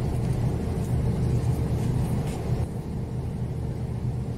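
Steady low rumble of a ship's running machinery, with a faint steady hum over it. A lighter hiss above it falls away about two and a half seconds in.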